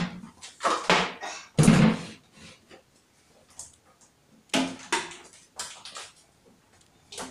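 Handling and wiping on a tiled kitchen counter: a few short scuffing and rubbing sounds of cloth on tile, with a knock about a second and a half in and a louder thump soon after.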